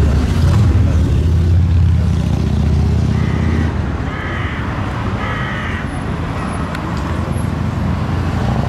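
Steady low rumble of a motor vehicle engine, easing off about three and a half seconds in, with a few brief voices.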